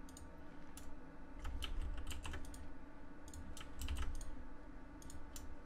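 Computer keyboard keys pressed in short, irregular taps, a dozen or so scattered clicks with some quick pairs, over a faint low hum.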